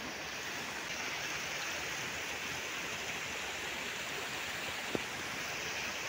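Steady rushing noise of flowing water, like a nearby stream, with a single short click about five seconds in.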